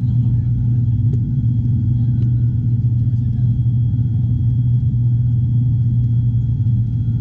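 Cabin noise of a high-wing turboprop airliner in flight: a loud, steady low hum from the propellers and engines with a thin constant whine above it.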